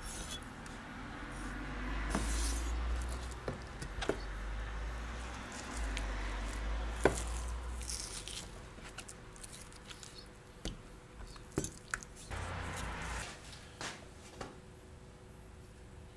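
A chef's knife cutting raw boneless chicken thighs on a plastic cutting board: soft squishing of the meat and irregular sharp knocks of the blade striking the board, the loudest about seven seconds in.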